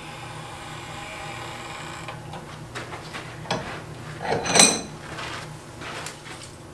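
Red-hot iron scroll handled on the jaws of a blacksmith's vise with an iron rod: scraping and light knocks of metal on metal, then one loud ringing clink about four and a half seconds in as the scroll is lifted off, and a few light clicks after.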